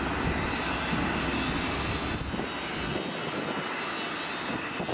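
X'trapolis electric multiple-unit train pulling away from the platform, with a steady running noise. Its low rumble drops away about three seconds in as it moves off.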